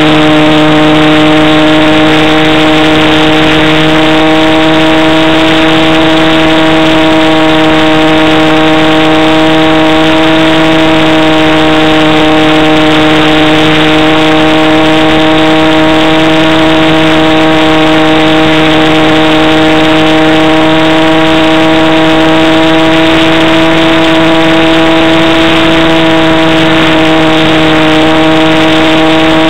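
Model airplane's motor and propeller running steadily at cruise, loud and close. The pitch holds nearly constant, drifting only slightly up and down with the throttle.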